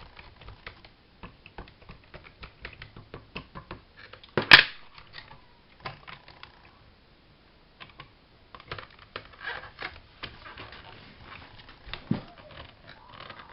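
Small irregular taps and clicks of craft tools and paper being handled on a tabletop, with one sharp louder knock about four and a half seconds in.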